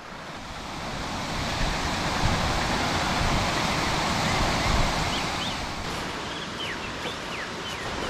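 Rushing water of a rocky mountain creek, a steady noisy rush that swells up over the first couple of seconds. A few faint short bird chirps come through in the second half.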